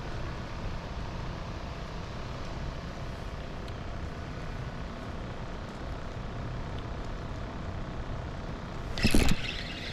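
Steady low outdoor rumble, with a short, loud burst of noise about nine seconds in.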